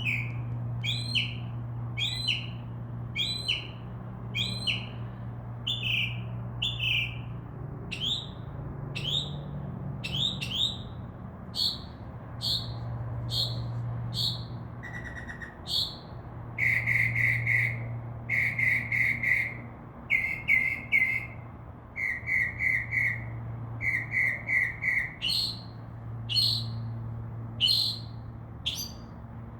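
Northern mockingbird singing: a long run of repeated whistled notes, each sliding downward, about one a second. Midway these give way to groups of short, rapid chattering notes, and the down-slurred notes return near the end. A steady low hum runs underneath.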